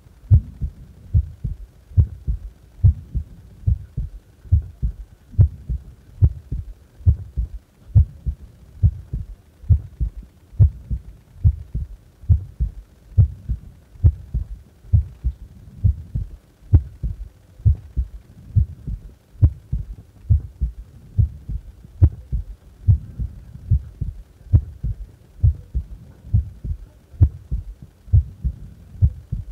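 A person's heart beating at rest: a steady, even rhythm of paired low thumps, the lub-dub of each heartbeat.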